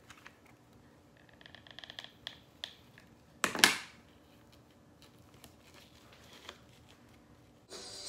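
Quiet crafting handling sounds: soft clicks and rustles of rope and a hot glue gun being handled on a stone countertop, with one short louder scuff about three and a half seconds in. Background music starts just before the end.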